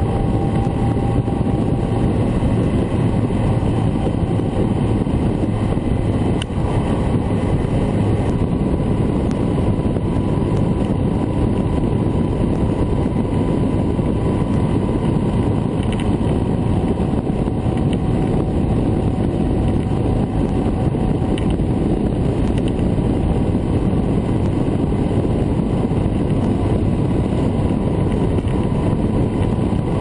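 Honda CB1300 Super Bol d'Or's inline-four engine running at a steady expressway cruise, mixed with a constant rush of wind and road noise.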